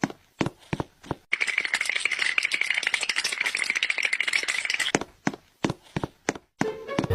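Sharp taps, about two or three a second, then a dense, fast rattling for about three and a half seconds, then spaced taps again.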